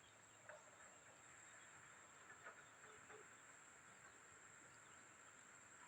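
Near silence: a faint, steady, high-pitched insect drone, with a few faint ticks.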